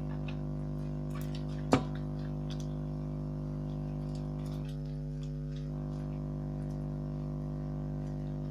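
A steady low hum, with one sharp click just under two seconds in and a few faint light taps.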